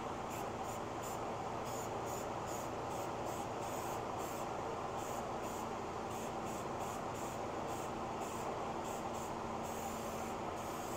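Aerosol spray-paint can hissing in short, quick bursts, over and over, as white paint is sprayed onto a sheet-metal tractor hood, over steady background noise.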